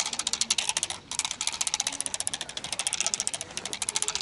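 Bamboo agitation stick shaken rapidly, giving a fast rattling clatter of about a dozen cracks a second, with a brief break about a second in.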